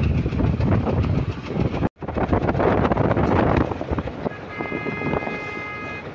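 Changfa 1115 single-cylinder diesel engine of a loaded motor van (votvoti) running under way, with a brief gap in the sound about two seconds in and lighter running afterwards. Near the end a vehicle horn sounds a steady note for about a second and a half.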